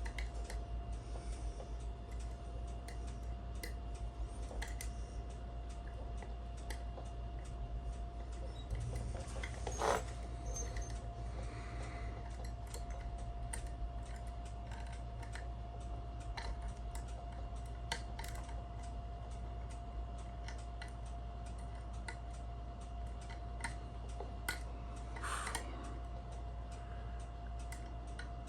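Small metallic clicks and scrapes of homemade lever picks working the tightly spaced levers of a Wellington five-lever mortise lock, with two louder scraping rattles about ten and twenty-five seconds in. A steady low hum runs underneath.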